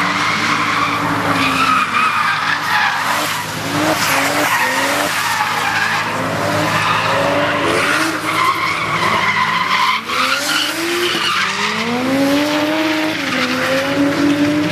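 A drift car sliding sideways, its engine revving up and dropping back again and again while its tyres squeal.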